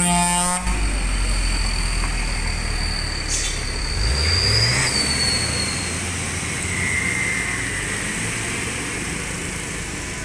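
Diesel engine of a loaded Isuzu Giga truck running under load on a steep climb, its pitch rising about four seconds in as it revs up. There is a brief toot at the very start.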